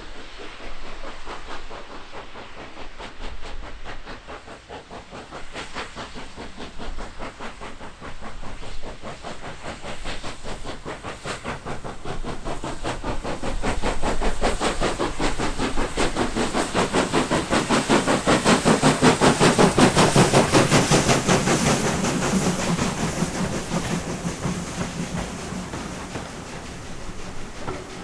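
Steam locomotive passing under way: a rapid, even beat of exhaust that grows louder to a peak about two-thirds of the way through, then dies away.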